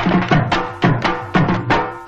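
Festival drums beaten in a fast, loud rhythm, about two to three strokes a second, each stroke's low pitch dropping as it dies away. A steady held tone sounds underneath.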